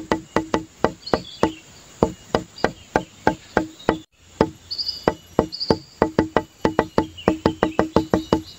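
Background music: a quick percussive instrumental of short woody, pitched plucks or knocks, with a few faint high chirps. It cuts out for an instant about four seconds in and starts again.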